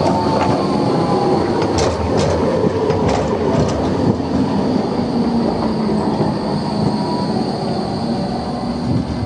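Low-floor electric tram passing close by at low speed on a curve, rumbling steadily with a thin high squeal from its wheels. A few sharp clicks come from the track in the first few seconds.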